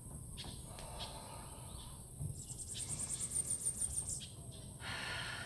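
Forest ambience with a rapid series of high, evenly spaced chirps, about seven a second, running from about two seconds in to about four seconds in, over a steady background hiss. A soft breathy rush comes near the end.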